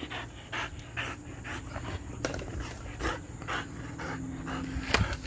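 Border collie panting fast, about two to three breaths a second, while holding a stick in its mouth, with a sharp click near the end.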